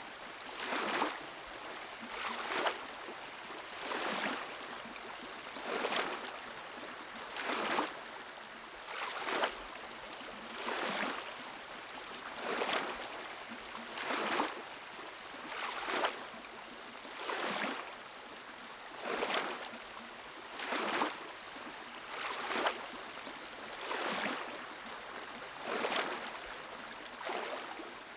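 Synthesized Endor forest ambience: a regular whooshing swell of noise about every second and a half to two seconds, over a soft steady hiss, with short clusters of faint high chirps recurring throughout.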